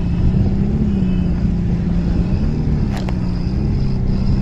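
A vehicle running with a steady low drone that rises and falls slightly in pitch, over a heavy low rumble. A single sharp click about three seconds in.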